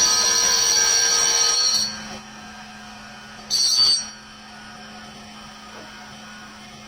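Cutting tool on a CNC lathe squealing as it cuts a steel engine cylinder sleeve, a high-pitched metallic squeal that stops a little under two seconds in. A second short squeal comes about halfway through, and a steady machine hum runs beneath.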